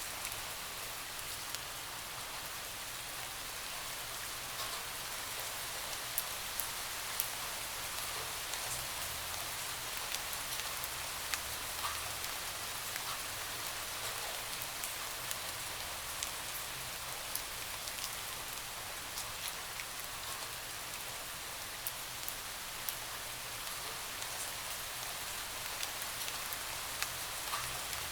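Steady rain falling on a window: an even hiss of rain, with single drops tapping sharply against it every second or so.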